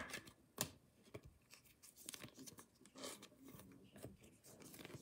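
Quiet handling of trading cards and a foil pack wrapper: a sharp snap right at the start and another about half a second later, then soft rustling and scraping as the cards are sorted and set down on a table.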